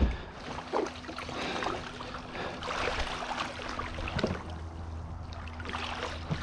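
Shallow water sloshing and splashing as a person climbs out of a kayak and wades, with a few dull knocks.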